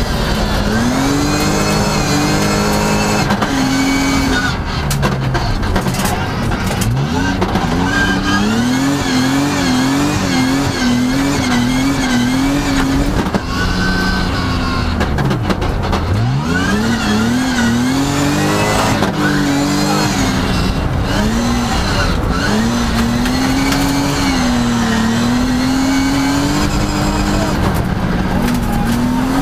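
Rally car engine heard from inside the cabin, driven hard through a special stage: its pitch rises and drops again and again with throttle and gear changes, at times in quick back-and-forth bursts, over constant road noise.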